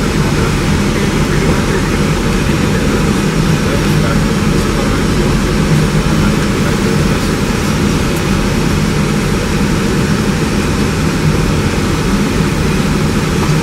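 Airbus A320 in flight on approach, heard from inside the aircraft: a steady, loud rush of airflow and engine noise with a low hum underneath.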